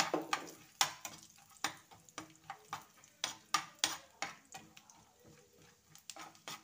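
Chopped almonds frying in ghee in a non-stick frying pan, stirred with a spatula: repeated scrapes and taps of the spatula on the pan, a few a second, over a light sizzle.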